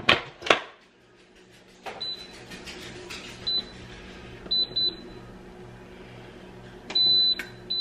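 Electric pressure cooker: the lid is set on and locked with two sharp clacks, then the control panel beeps at each button press, single short beeps and a quick double. Two longer beeps near the end come as the low slow-cook setting is entered.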